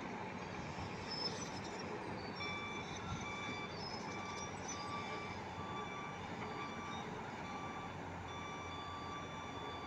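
A mobile crane's engine running steadily, with an electronic warning beeper sounding short, evenly repeated beeps from about two seconds in.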